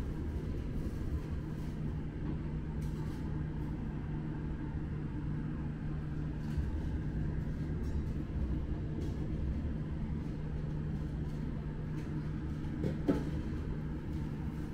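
Steady low mechanical hum of running kitchen machinery, with a few faint light ticks and one brief sharp sound near the end.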